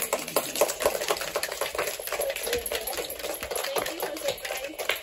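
Small group of people clapping their hands, a dense run of irregular claps.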